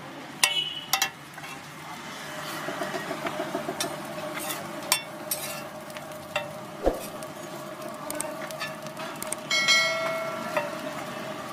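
Metal spatula scraping and clanking on a large flat griddle (tawa) as bread slices are turned, over a steady sizzle of the bread toasting on the hot plate. A few of the strikes ring briefly, most clearly near the end.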